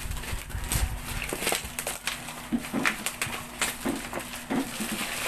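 Plastic packaging wrap crinkling and rustling as it is handled and pulled from a parcel, in a run of sharp crackles, with low bumps and knocks in the first second.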